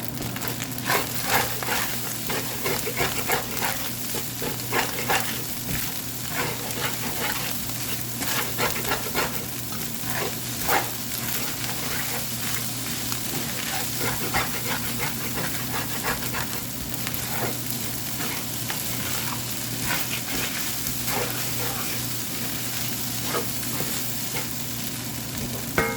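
Fried rice sizzling in a hot pan while a spatula stirs and scrapes through it, with frequent scraping strokes that are busiest in the first half.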